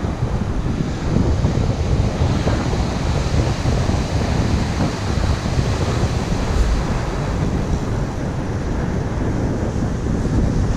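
Wind buffeting the microphone over small waves breaking and washing up a gravel beach, a steady low rumble with the hiss of the surf.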